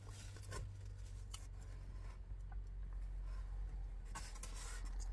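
Scraping and rustling of a styrofoam takeout container and food being handled with the fingers: a few short, sharp scrapes, the longest about four seconds in, over a steady low hum.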